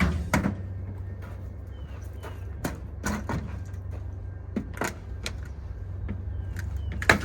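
Garage door opener pulling on a top section that has no strut brace. There is a steady low hum, with scattered creaks and knocks from the door, and a loud crack right at the end as the unbraced section gives way.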